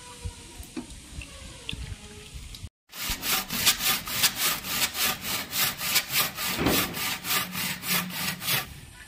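Hand saw cutting through a wooden plank in quick, even back-and-forth strokes, about four a second. The sawing starts about three seconds in.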